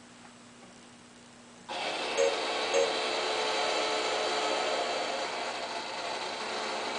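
A pinball machine's steady mechanical whir and hum, starting suddenly about two seconds in, with short paired electronic blips soon after.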